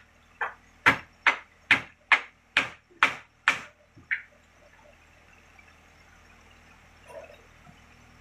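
A quick, even series of sharp knocks, about two a second and nine in all, stopping about four seconds in.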